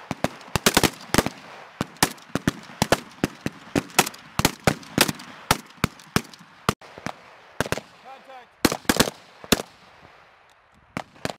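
AK-47-pattern assault rifles (7.62×39 mm) firing on a range: sharp cracks from several shooters, single shots and quick runs of shots overlapping at irregular spacing, thinning out near the end.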